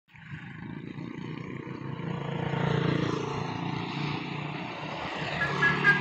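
Motorcycle engines running as the bikes approach and pass. Near the end, a multi-tone telolet horn starts sounding short musical notes.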